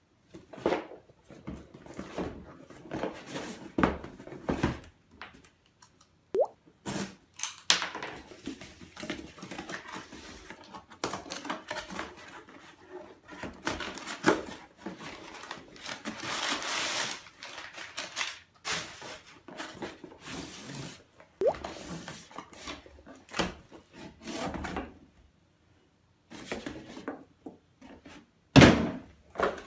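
Cardboard shipping box handled and opened by hand: flaps pulled open, cardboard rustling and scraping, and the box knocking on the table. A stretch of steady scraping comes about halfway through, and the loudest thump comes near the end as the boxed antenna is set down.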